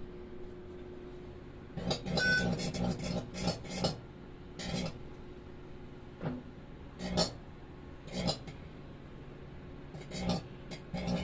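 A faulty microwave oven, its cavity already bubbled and burnt, running with a steady hum, broken about two seconds in by irregular bursts of crackling that recur every second or two. The owner judges what it is doing definitely dangerous.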